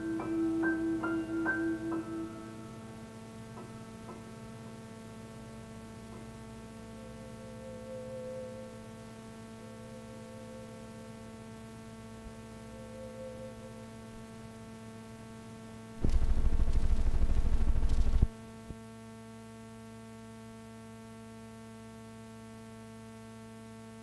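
The last piano notes of a cassette transfer die away about two seconds in, leaving a steady electrical mains hum with faint hiss. About two-thirds of the way through, a loud rush of noise lasts about two seconds and cuts off suddenly, then the hum goes on.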